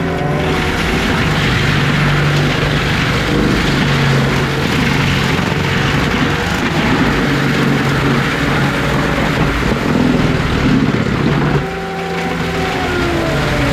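Engine of heavy earthmoving equipment running hard, its pitch rising and falling as it works. About twelve seconds in, the engine drops back and a higher whine slides up and down.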